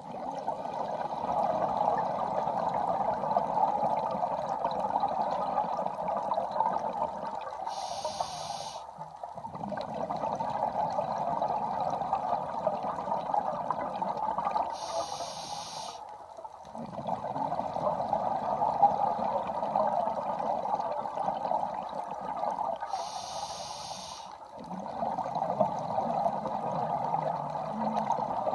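A scuba diver breathing through a regulator underwater in a slow cycle of about eight seconds. Three times, a short, high hiss of inhalation is followed by a long, noisy burble of exhaled bubbles.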